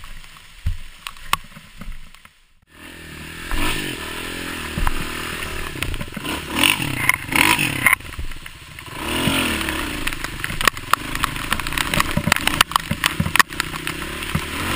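Dirt bike engine revving up and down under way on a rough trail, with knocks and clatter from the bike over the ground. The first couple of seconds are quieter, with a few knocks, before the engine comes in loud.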